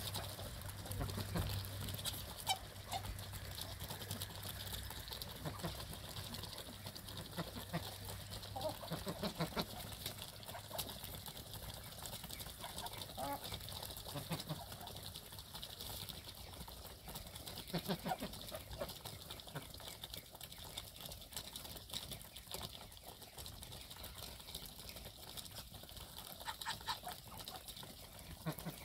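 A flock of chickens and ducks pecking wheat grain off the ground: many quick pecking taps, with soft clucks now and then.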